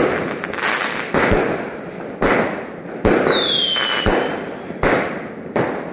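Aerial fireworks bursting close overhead: a string of sharp bangs, about one a second, each trailing off in crackle. A short falling whistle sounds a little past three seconds in.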